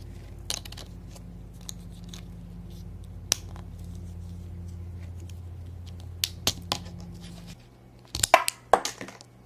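Small plastic clicks and taps as a toy disc launcher is handled and its picture discs are swapped, with a quick cluster of louder clicks near the end. A steady low hum runs underneath and cuts off a couple of seconds before the end.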